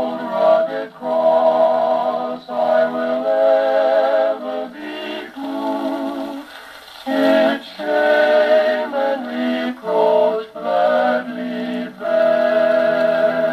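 HMV Model 102 wind-up gramophone playing a 78 rpm record of a hymn: a melody with vibrato in phrases separated by short breaks, sounding thin with no deep bass.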